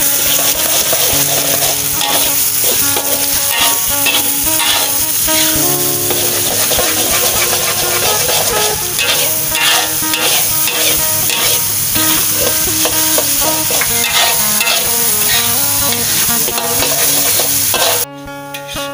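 Curry paste and onions frying in hot oil in a metal wok with a steady sizzle, a metal spatula scraping and stirring against the wok throughout. The sizzle cuts off suddenly near the end, leaving background guitar music.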